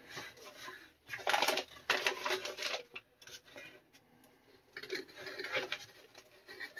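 Paper and packaging rustling as an instruction booklet and a paper envelope are handled in a cardboard model-kit box, with light taps of thin laser-cut wood sheets and strips being shifted. The rustling comes in three spells of about a second each, with a quieter stretch in the middle.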